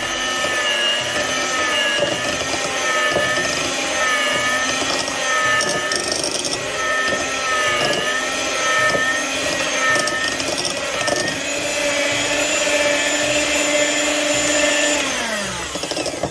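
Electric hand mixer running steadily, its beaters whisking a thin egg-and-sugar cake batter, with a motor whine that wavers slightly as the beaters move through the bowl. Near the end the whine drops in pitch and dies away as the mixer is switched off.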